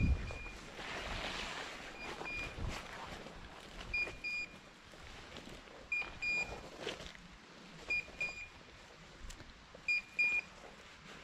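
A hunting dog's beeper collar sounding a short high double beep about every two seconds, over the rustle of someone walking through gorse and bracken, with a knock right at the start.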